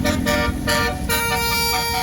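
Tour bus's telolet 'basuri' musical air horn playing a tune of steady, bright notes that step in pitch, with one note held from about halfway.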